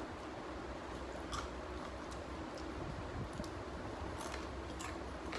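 A person chewing a crisp butter chakli, a crunchy spiral snack made from tapioca flour, with a few faint, scattered crunches.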